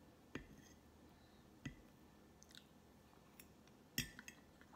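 Soft mouth sounds of someone chewing cake, with a few scattered clicks. The loudest click comes about four seconds in, as a metal fork meets the ceramic plate.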